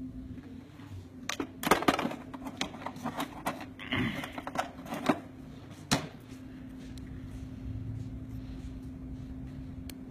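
Plastic nail tips clicking and rattling as they are picked up and handled, in a cluster of sharp clicks a second or so in that ends about six seconds in, over a steady low hum.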